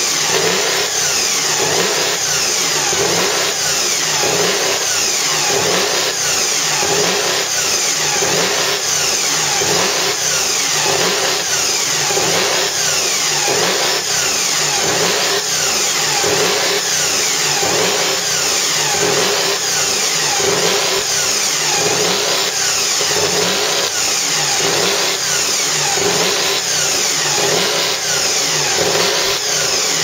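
Mercedes-Benz W165's supercharged 1.5-litre V8 running steadily while the car stands still, loud and even throughout.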